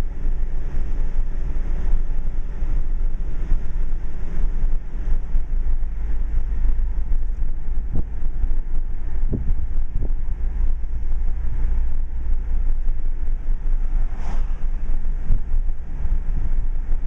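Subaru Outback driving up a mountain road, heard from inside the cabin: a steady low rumble of engine and tyres, with a few short knocks in the middle.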